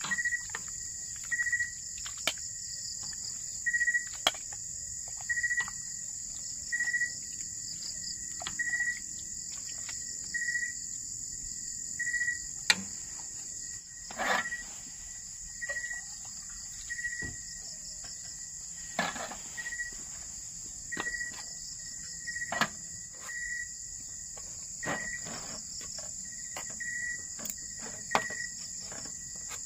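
Night insects, crickets among them, keeping up a steady high-pitched drone, with a short chirp repeating about every one and a half seconds and a few scattered clicks.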